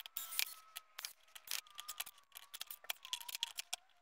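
Cordless drill/driver driving long wood screws into a stack of glued plywood discs: a thin motor whine under a run of sharp clicks and rattles, the whine sinking in pitch near the end.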